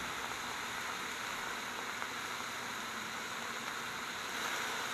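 Diced chicken breast sizzling and steaming on a hot flat-top griddle: a steady, even hiss.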